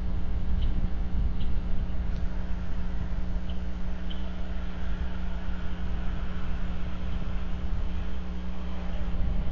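A steady low mechanical hum and rumble, with a few faint, short, high chirps in the first few seconds.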